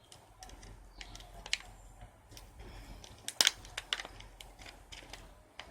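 A torn-open packet being pulled open and handled: irregular crinkling crackles and clicks, with a loud cluster about three and a half seconds in.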